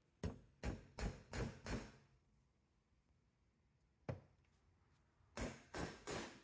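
Brass hammer tapping on the pin-setting tool to drive the pin into an AR-15 front sight post. Five quick taps, a single tap about four seconds in, then three more near the end.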